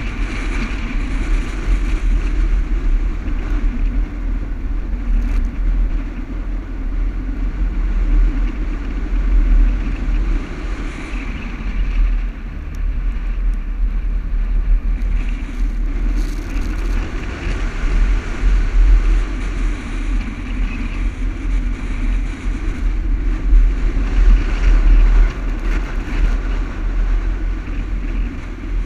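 Toyota Land Cruiser driving over soft sand dunes: the engine runs continuously under load, its note wavering up and down with the throttle over a heavy low rumble.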